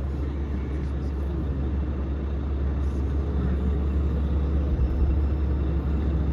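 Vehicle engine running with a steady low rumble, getting a little louder midway.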